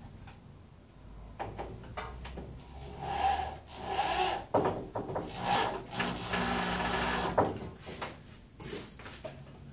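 Cordless drill driving a screw through a plywood straightedge strip into a rough-cut board, the motor running in several bursts from about three seconds in, the last and longest ending about seven and a half seconds in. A few light knocks of handling come before it.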